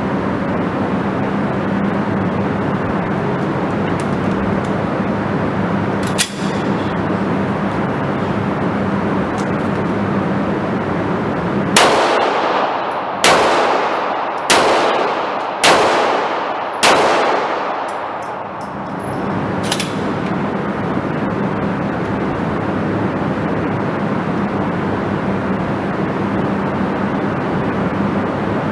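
Five handgun shots fired in quick succession, about one every 1.2 seconds, each with a long ringing echo. A fainter single knock comes about six seconds in, over a steady background hum and hiss.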